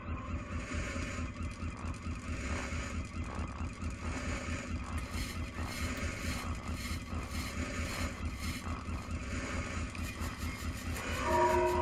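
Industrial machinery ambience: a steady low mechanical rumble with hiss, and through the middle a regular run of short hissing pulses, about two a second.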